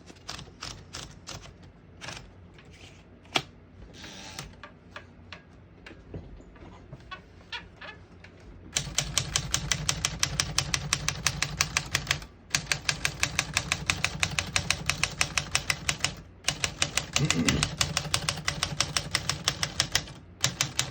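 1950 Smith-Corona Skyriter manual portable typewriter. It starts with scattered, lighter mechanical clicks as the machine is handled. About eight seconds in, rapid typing begins: sharp type-bar strikes, several a second, with three brief pauses.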